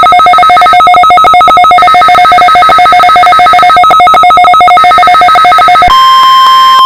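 Electronic alert tone, two pitches pulsing very rapidly together in a trill like a telephone ring. About six seconds in it cuts off and the steady single-pitch NOAA Weather Radio warning alarm tone begins.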